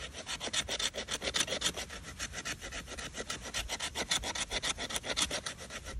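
A blade working wood in quick, even back-and-forth strokes, about eight a second, like sawing or scraping.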